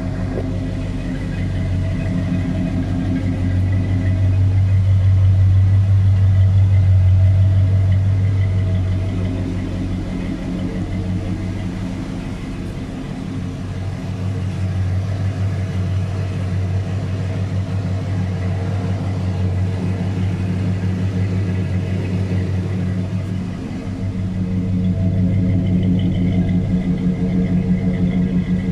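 1976 Lincoln Continental Mark IV's V8 idling through new Magnaflow mufflers, giving a steady, deep exhaust rumble. The rumble swells louder a few seconds in and again near the end.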